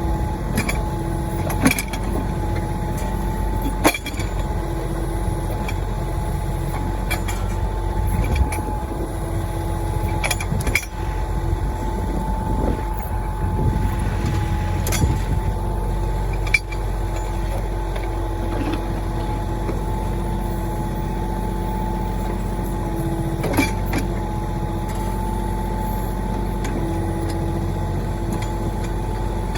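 Mahindra 1626 tractor's diesel engine running steadily while the backhoe digs out a pine stump, with a steady whine over the engine and sharp knocks now and then.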